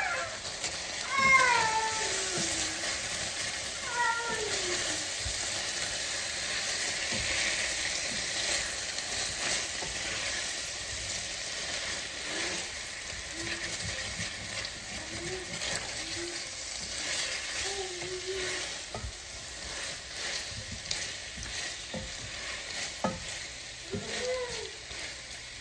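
Chicken and potato pieces sizzling in a thick, reducing sauce in a stainless steel pan, stirred and scraped with a spatula, with a steady hiss and occasional clicks. A few brief high squeals from a voice fall in pitch about a second in and again around four seconds, the first being the loudest moment.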